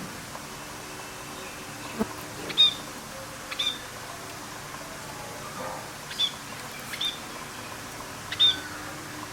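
A bird's short, high chirps, each dropping quickly in pitch, about half a dozen at irregular intervals over a steady background hiss, with a single soft knock about two seconds in.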